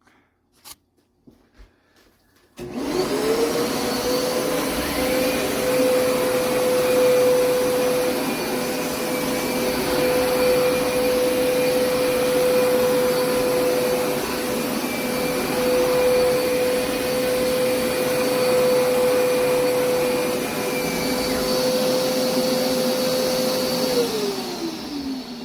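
Hoover SmartWash FH53050 carpet cleaner's motor switched on about two and a half seconds in. It spins up to a steady whine and runs for about twenty seconds, then spins down near the end.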